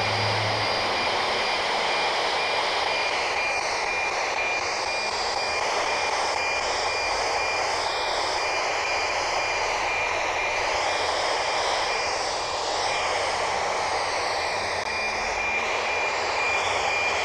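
NOAA-15 weather satellite's APT downlink on 137.620 MHz heard through a handheld radio's speaker: a steady hiss carrying a constant high whistle, with a fainter whistle an octave above. The signal comes in strongly, a sign that the small antenna is receiving the satellite well.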